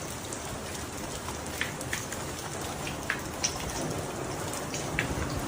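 Steady heavy rain falling, with a few sharp taps of drops striking a hard surface scattered through it.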